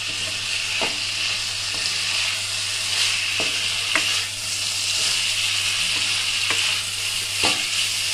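Vegetables sizzling in oil and spice paste in a pan as a wooden spatula stirs them, with a steady hiss and a few sharp knocks of the spatula against the pan.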